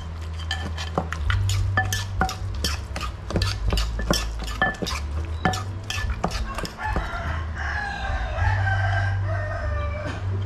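Wooden pestle pounding in a clay mortar, mashing cooked fish, about three knocks a second. About seven seconds in, a rooster crows once, a long wavering call of about three seconds.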